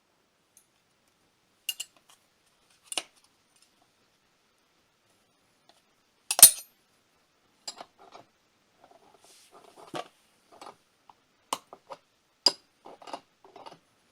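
Metal hand tools and a gear puller clinking and knocking against metal parts in irregular separate strikes, the loudest a sharp knock about six seconds in.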